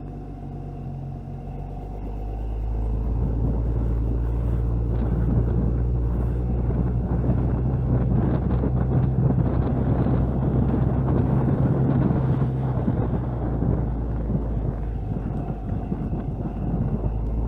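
Jeep Cherokee XJ driving, its engine running at a steady low hum under rough road noise from the tyres. The road noise grows louder about two seconds in.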